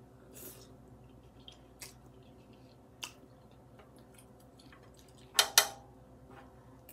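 Someone eating noodles: a short slurp at the start, quiet chewing, and wooden chopsticks clicking against a cast-iron pot. The clicking is loudest in two quick knocks a little past five seconds in.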